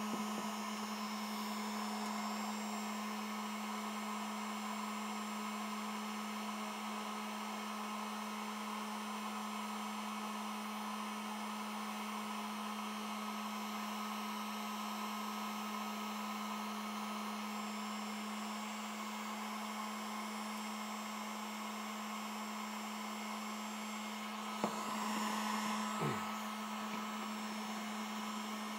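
Harbor Freight heat gun running steadily, its fan blowing hot air with a constant hum. A sharp click and brief handling noise near the end.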